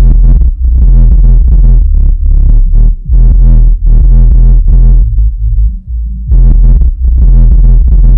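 Dayton Audio 12-inch Reference HF subwoofer playing loud electronic music that has been filtered to its deep bass below about 73 Hz: heavy pulsing bass on a steady beat. About six seconds in, it eases off briefly.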